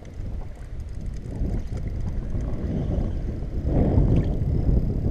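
Wind buffeting the microphone: a low, rumbling noise that swells to its loudest about four seconds in.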